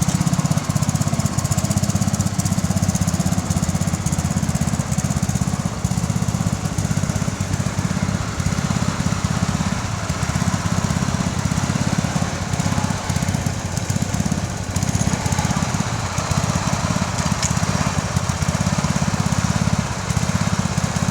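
Bolens 1050 garden tractor engine running steadily under load while ploughing, with a rapid, even low firing pulse.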